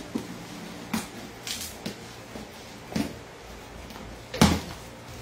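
Packing tape on a cardboard box being slit and pulled loose: a string of short scrapes, clicks and tearing sounds, with the loudest rip about four and a half seconds in.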